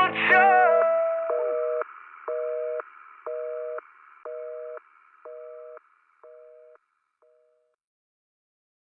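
The song's last note rings out in the first second, then a North American telephone busy signal: a two-tone beep about once a second, fading out after seven beeps.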